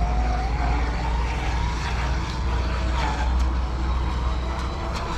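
Joysway Bullet RC speedboat's electric motor whining as it runs across choppy water, its pitch rising over the first second and then holding high, over a steady low rumble.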